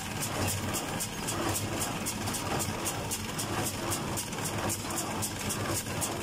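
Fendt 310 tractor's engine running steadily under load as it pulls a working John Deere 349 small square baler, heard from inside the cab. A fast, even ticking about four times a second runs over the engine hum. The baler is working properly.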